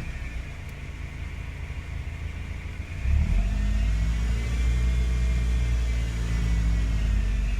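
2005 Lotus Elise engine running, its note settling low, then stepping up and getting louder about three seconds in. A high whine rises and falls along with it; this is the unexplained noise the owner is trying to identify.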